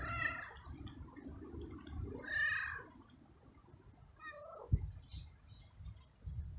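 Stray tabby tomcat meowing three times: a short call at the start, the loudest and longest about two seconds in, and a last one falling in pitch about four seconds in. The owner takes the insistent meowing for a tom in heat seeking a mate rather than hunger.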